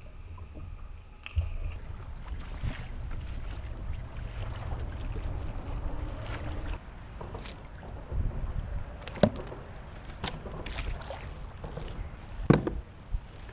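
Wind buffeting the microphone and water against a plastic sit-on-top fishing kayak, with several sharp knocks, the loudest about nine and twelve seconds in.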